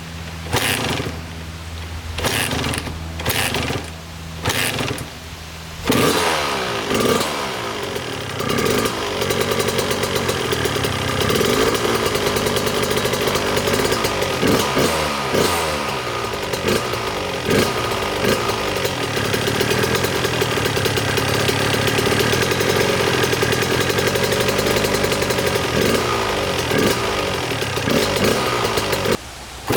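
Suzuki RM80 two-stroke dirt bike engine, fitted with an 85 cylinder, running steadily at low revs, then revving up and down continuously from about six seconds in.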